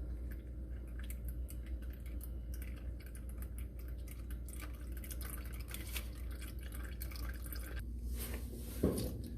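Used engine oil draining from a Nissan Sentra's drain-plug hole into a drain pan, trickling and dripping irregularly over a low steady hum.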